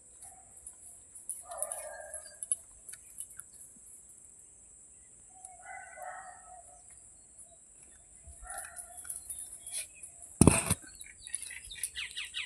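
A few short animal calls, each about half a second long, spaced several seconds apart. A single loud thump comes about ten seconds in, followed near the end by a quick run of short falling squeaks.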